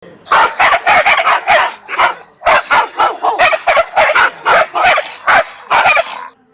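A dog barking in a rapid run of short barks, about three a second, with a brief pause about two seconds in.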